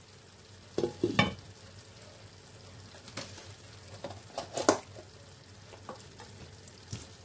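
A glass pan lid is set down on a frying pan with a clink and a few knocks about a second in. A few lighter knocks follow. Underneath, rice in tomato sauce sizzles softly as it cooks.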